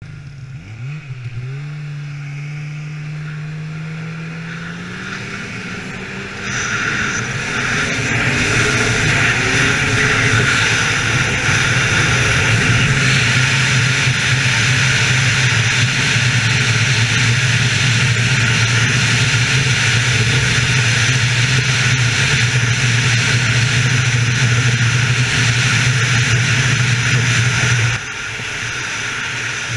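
Polaris 800 two-stroke snowmobile engine pulling hard across the ice, its pitch climbing about a second in and then holding at top speed. About six seconds in it gets louder as a strong rushing hiss of wind and track joins in, and near the end the throttle eases off and the sound drops.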